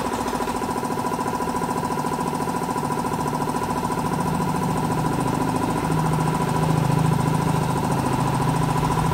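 Electric sanding machine running steadily with sandpaper on a plastic motorcycle side cover, smoothing down a plastic-welded repair, a fast even buzz with a steady high hum. A deeper hum comes in from about four seconds in.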